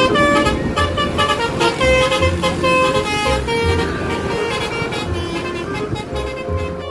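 Multi-tone 'telolet' bus horn playing a fast melody of short notes that step up and down, over a low repeating pulse.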